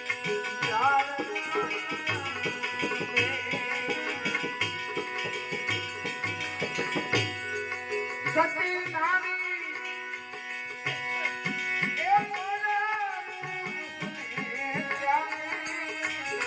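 Gujarati devotional bhajan: a singer's long, wavering phrases over tabla strokes and steady held instrument tones.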